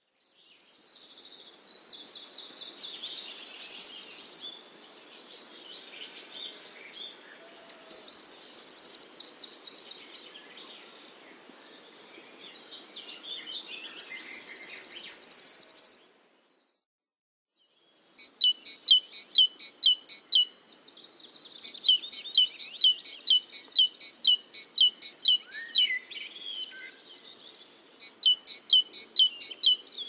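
Songbirds singing. Loud trilled song phrases come every few seconds, then after a brief break a fast run of repeated chirps follows, about three or four a second.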